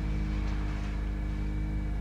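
Pontiac Vibe's 1.8-litre four-cylinder engine idling steadily at about 1,500 rpm, with a faint high whine over the engine note.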